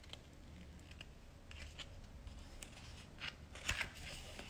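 Pages of a large photobook being turned by hand: soft paper rustles and light flaps, a little louder about three seconds in.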